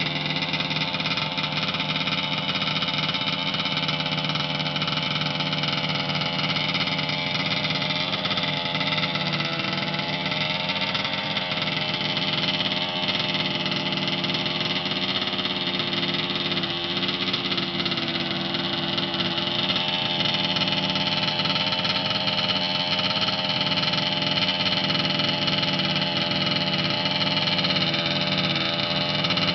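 A steady droning hum from a pipe, made of several held tones that waver slightly without stopping.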